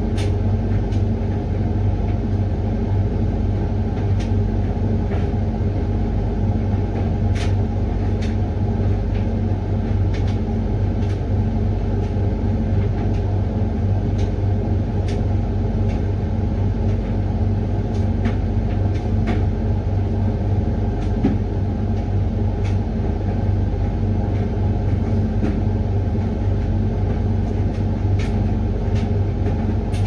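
Hoover HLXC8TRGR 8 kg condenser tumble dryer running with a steady low motor hum as the drum turns the load. Now and then there is a faint tick.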